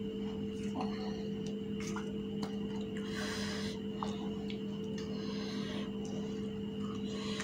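Scattered light clicks and short crisp scratches of hollow fuchka shells and a metal spoon being handled as the shells are filled with potato mash, over a steady low hum.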